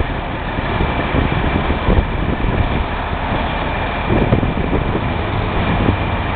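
Steady rumble of heavy recovery vehicles' engines running, mixed with wind buffeting the microphone, and a thin steady high whine throughout.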